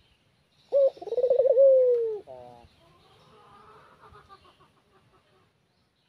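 Puter (Barbary dove) giving one cooing call about a second in: a short opening note, then a warbling rolled coo that slides down in pitch, ending in a brief lower note.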